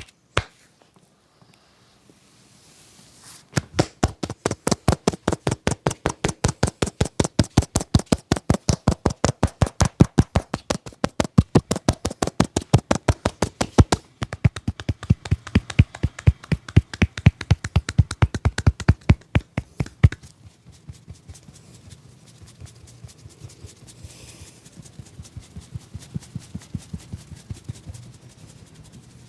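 Percussive hand massage by a barber: fast, even slaps and taps of the hands, several strokes a second, starting a few seconds in, with a brief break midway, and stopping abruptly about two-thirds through, followed by fainter, softer tapping.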